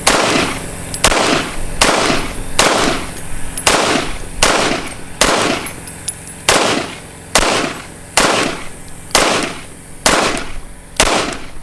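CZ P07 pistol fired about thirteen times in steady succession, roughly one shot a second, each a sharp crack with a short ring-out. The pistol is cycling and firing every round after its firing pin was replaced.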